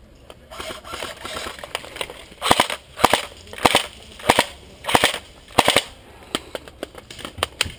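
Plastic high-capacity airsoft AK magazine being wound by hand: a fast rattle of ratchet clicks in short strokes about every 0.6 s, starting about two and a half seconds in.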